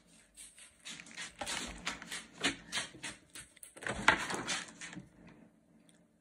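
Crinkling and crackling of a chocolate's foil wrapper being unwrapped by hand, a dense run of small crackles that dies away about five seconds in.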